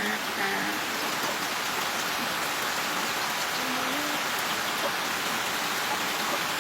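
Steady rain falling, an even continuous hiss of drops with no let-up.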